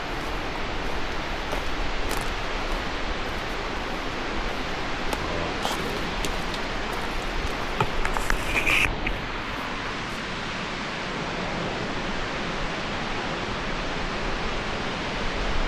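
Waterfall rushing steadily, an even roar of falling water. A brief high-pitched sound rises above it about halfway through.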